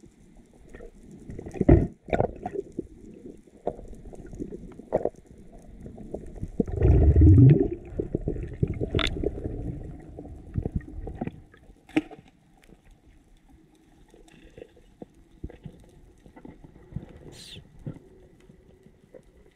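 Underwater sound heard through a GoPro action camera's waterproof housing: a muffled low rumble of moving water with scattered knocks and clicks. There is a sharp knock about two seconds in and a loud gurgling surge around seven seconds in.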